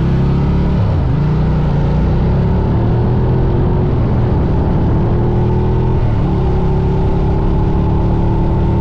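Ducati Diavel's Testastretta V-twin engine pulling the bike along: the engine note drops at a gear change about a second in, climbs slowly as it speeds up, drops at another shift about six seconds in, then holds nearly steady.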